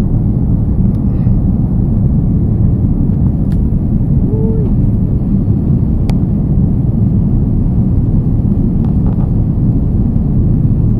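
Steady low rumble of an airliner's engines and airflow heard inside the passenger cabin in flight.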